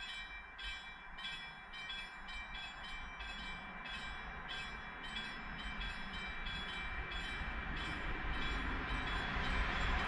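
Level crossing warning bell ringing in quick, even strokes, about two to three a second, fading out near the end. Under it a broad rumble grows steadily louder toward the end.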